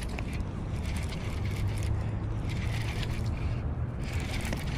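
Fishing reel working while a hooked fish is fought in: irregular mechanical clicking and gear noise over a steady low rumble. The fish is taking line against a drag set too light to gain on it.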